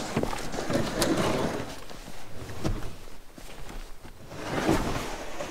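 Plastic ice-fishing sled carrying a folded one-man shack being lifted and slid off a steel hitch-mounted cargo carrier: scraping and knocking of the sled against the metal rails, with the nylon shack cover rustling.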